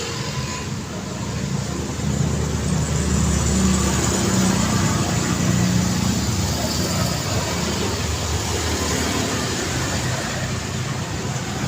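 Street traffic: a car's engine running close by over steady road noise, loudest from about two to six seconds in.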